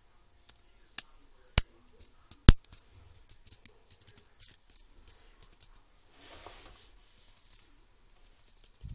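Sharp plastic clicks of a laptop keyboard being taken apart, its keycaps and scissor-clip key mechanisms being handled and pried off: four loud clicks in the first few seconds, then a run of smaller clicks and a brief rustle.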